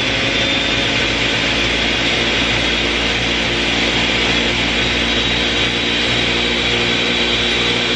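Ninja Professional countertop blender running steadily on blend, puréeing boiled tomatillos and chiles with some of their cooking water. An even, loud motor-and-blade whirr with a faint high whine that rises a little at the start, then holds steady.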